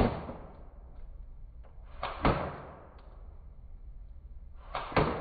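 Slowed-down airsoft gun fire: three deep, drawn-out thuds about two and a half seconds apart. Each has a softer knock just before it and a long fading tail.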